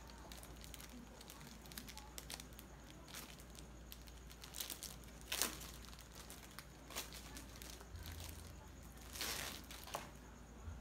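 Packaging and paper being handled in a cardboard box: faint crinkling and rustling with scattered small clicks, and two louder rustles about five and nine seconds in.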